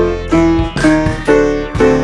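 Background music: a piano-like keyboard melody with a new note struck about twice a second, each ringing briefly before the next.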